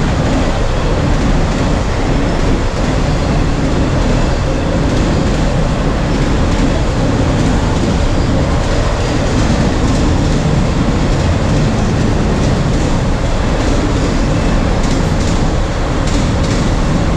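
Norfolk Southern autorack freight train rolling past, a steady noise of steel wheels on rail, with a few faint clicks near the end.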